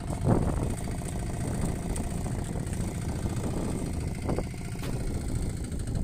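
Fishing boat's engine idling steadily, with a sudden thump about a third of a second in and a smaller knock around four seconds in.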